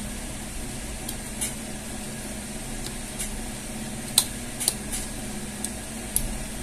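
A few short, sharp clicks and taps of hands working a cable connector on a monitor's circuit board, the loudest about four seconds in, over a steady low hum.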